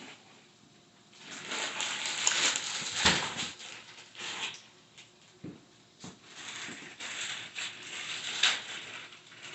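Rustling and scraping noises in two spells, with a couple of dull knocks.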